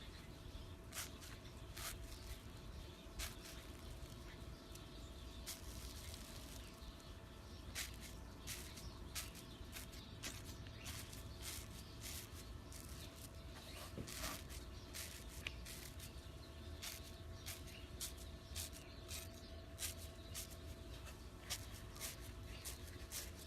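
Slime being handled, giving irregular sharp clicks and pops, with a few short stretches of soft hiss.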